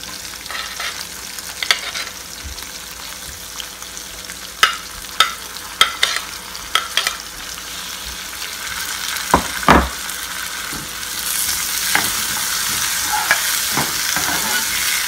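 Chopped onions sizzling in hot oil in a metal pan, with a spoon clinking and scraping against the pan as they are stirred, including two louder knocks past the middle. The sizzle grows louder about two-thirds of the way in.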